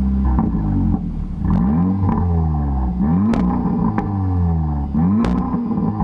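Audi S3's turbocharged four-cylinder engine revved with repeated quick blips of the throttle, the pitch rising and falling about once a second.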